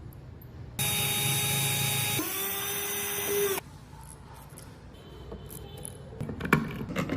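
A handheld power tool runs in a short burst, starting suddenly about a second in, shifting pitch partway through and cutting off abruptly after nearly three seconds. Light clicks and scraping follow near the end.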